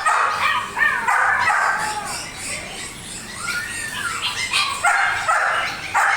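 Dog barking and yipping in quick clusters, with one drawn-out rising-and-falling call about halfway through.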